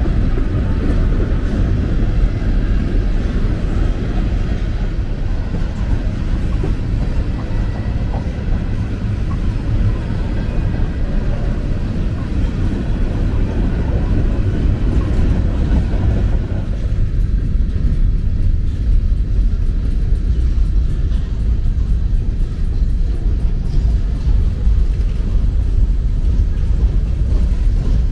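Empty covered hopper cars of a long freight train rolling past close by: a steady low rumble of steel wheels on rail. About two-thirds of the way through, the higher clatter drops away and mostly the low rumble is left.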